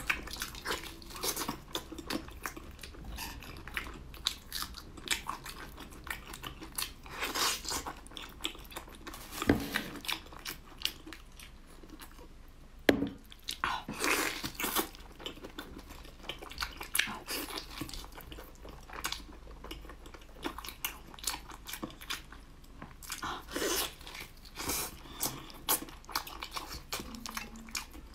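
Biting and chewing a braised pork knuckle: irregular mouth clicks and the sounds of meat and skin being chewed, with one sharper click about halfway through.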